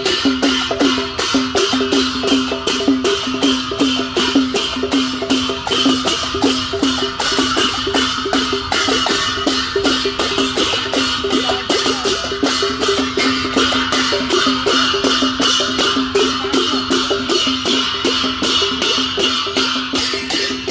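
Newari traditional percussion playing a steady rhythm. Large brass hand cymbals clash about three times a second over a drum beat.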